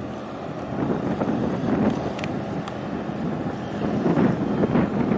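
Wind buffeting the microphone in uneven gusts, over a low steady engine drone and the wash of harbour water as a large container ship passes close by.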